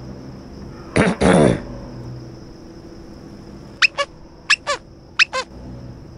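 Comic sound effects: a short cat-like mewl with falling pitch about a second in, then five quick whistle-like chirps, each sliding steeply downward, over a faint steady high-pitched whine.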